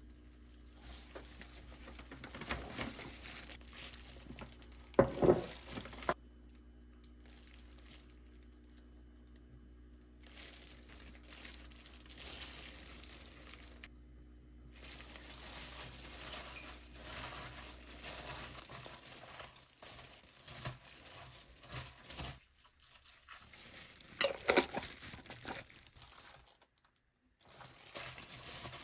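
Kitchen food-prep sounds in several short cuts: plastic packaging crinkling and rustling, with a sharp knock about five seconds in and a few more knocks later on.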